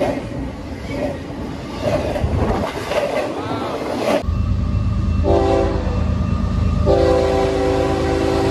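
Container cars of a double-stack freight train rolling past close by with wheel and rail noise. After a cut about four seconds in, an approaching freight locomotive sounds its multi-tone air horn over the low rumble of its diesel engine: one blast of about a second and a half, then a second, longer blast.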